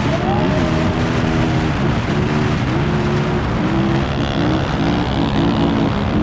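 Off-road vehicle engine revving up and down repeatedly over a steady rushing noise.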